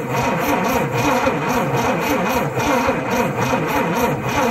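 Starter motor cranking the Dodge D300 truck's engine in a steady, rhythmic churn without it firing or catching: the engine is getting no spark.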